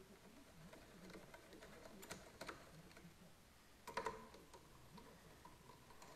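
A few faint, scattered metal clicks and taps as a driver backs the scope base screws out of a Savage rifle's receiver; the loudest click comes about four seconds in.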